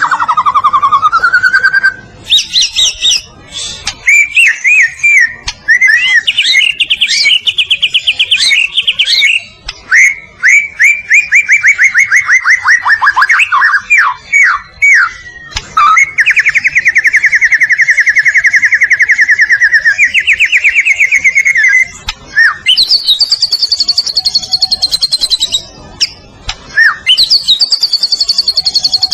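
White-rumped shama (murai batu) singing nonstop: a varied run of loud whistled phrases and rapid trills that changes every few seconds, with one long even trill about halfway through.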